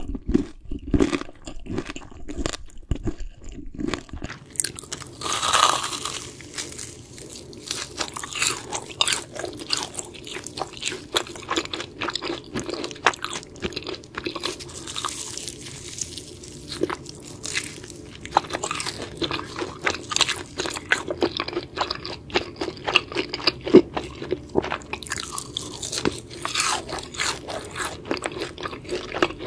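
Crunchy food being bitten and chewed close to the microphone, a run of irregular crisp crunches with a louder bite about five seconds in.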